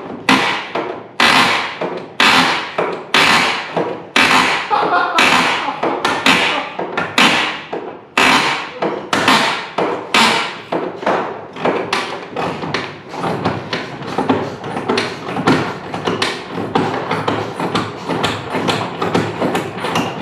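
Hammer blows on metal, about one or two a second, each ringing briefly. In the second half they turn quicker and lighter. This is typical of hammering at rusted, seized fixings on an old car's subframe.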